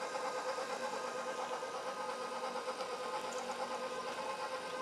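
KitchenAid bowl-lift stand mixer running steadily, its motor giving a constant hum as it mixes the tart filling.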